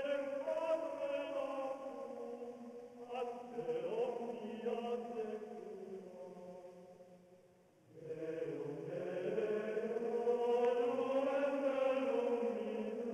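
Background music of chanted singing: voices holding long notes in slow phrases, with new phrases starting about three and eight seconds in.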